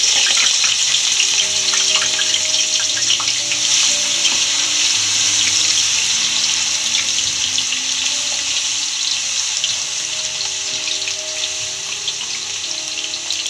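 Raw potato cubes deep-frying in hot oil in an aluminium kadhai: a loud, steady sizzle full of small crackles, easing off gradually as the surface moisture of the fresh-cut potato cooks off.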